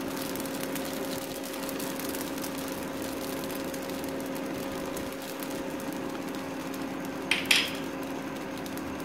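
Steady electric hum with a low held tone, typical of an electric cooktop running under a pan. About seven and a half seconds in there are two short clicks.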